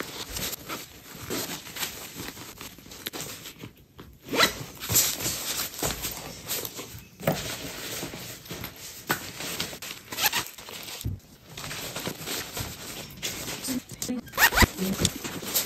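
Zippers on nylon packing cubes being zipped and unzipped in repeated short strokes, with the fabric rustling as it is handled.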